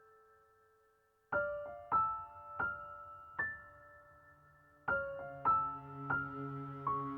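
Background music: a piano playing slow single notes that ring and fade, starting after a short pause, with a low held tone joining about two thirds of the way in.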